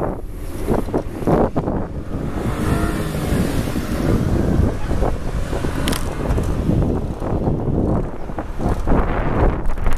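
Wind rushing over the microphone of a camera mounted on a moving bicycle, with frequent knocks and rattles as the tripod mount jolts over the road. A motor vehicle's engine passes a few seconds in.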